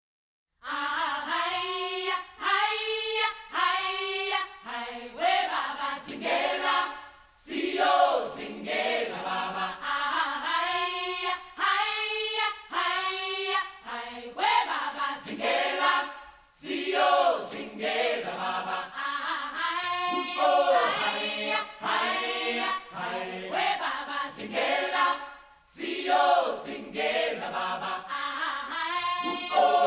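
Choir chanting in short repeated phrases, part of a music soundtrack, starting about half a second in.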